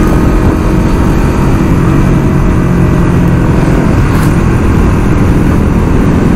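Engine and road noise of a vehicle travelling steadily along a road.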